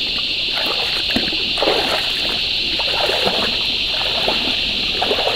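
A loud, steady, unbroken cicada chorus, with irregular water splashes and sloshes of someone wading through a shallow creek.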